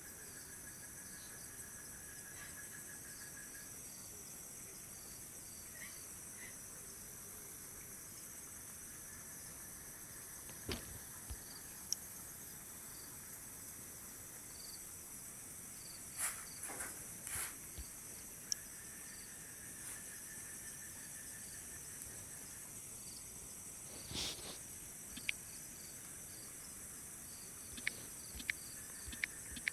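Steady high-pitched chirring of crickets and other insects at night, with a few short faint clicks and knocks scattered through it, several in quick succession near the end.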